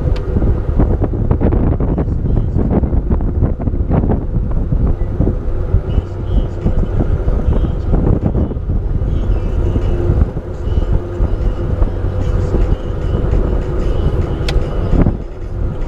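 Boat motor running steadily while under way, with wind buffeting the microphone.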